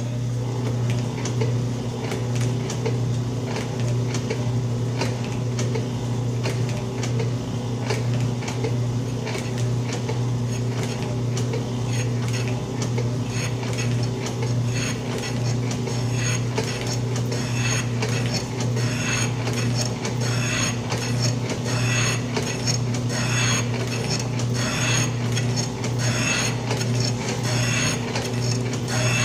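Old Atlas metal shaper running a light skim cut: steady motor hum under a repeating clatter with each stroke of the ram as the cutter planes the bottom of a steam-engine box bed.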